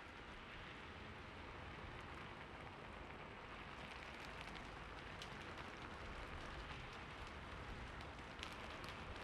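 Light rain falling steadily, a soft even hiss with scattered individual drops ticking, a little more of them in the second half.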